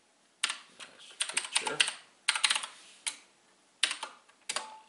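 Computer keyboard being typed on: quick clusters of key clicks with short pauses between, ending with a single keystroke near the end.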